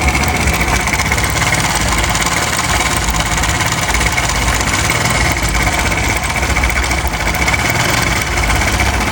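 Motorcycle engine idling steadily with a loud mechanical rattle, called really bad. The rattle comes from a worn-soft cam chain tensioner spring, which a harder spring cures.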